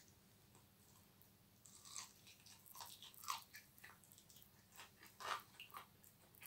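Faint crunching bites and chewing on a McDonald's chicken wing, a run of irregular crisp crackles starting about a second and a half in.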